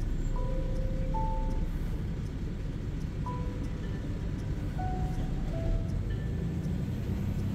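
Steady low rumble of a truck's engine and road noise, with music of sparse, single held notes playing over it.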